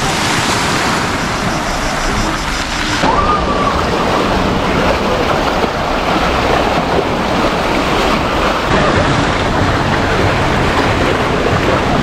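Sea waves washing on the shore, with wind rumbling on the microphone; the sound changes abruptly about three seconds in and again near nine seconds.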